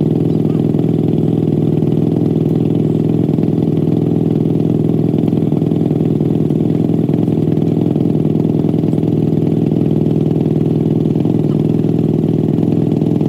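An ATV engine idling steadily, an even low running note with no revving.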